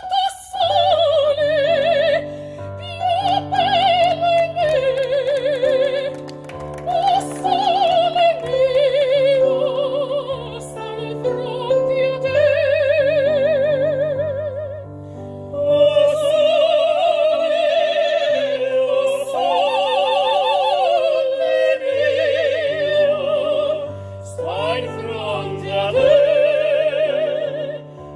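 Operatic singing in a high voice with wide vibrato, in phrases with short breaks, over keyboard accompaniment holding sustained bass notes and chords.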